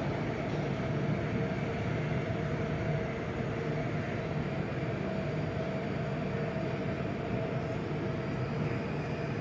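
Interior noise of a Bangkok MRT Blue Line metro train running between stations: a steady rumble with a faint steady hum over it.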